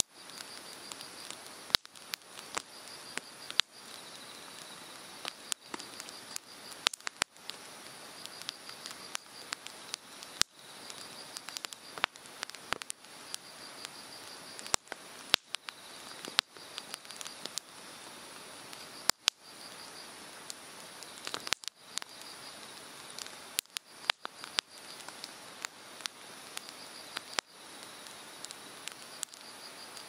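Hardwood bonfire crackling, with frequent sharp pops at irregular intervals, over the steady rush of a mountain stream. Insects chirp throughout in a high, pulsing trill.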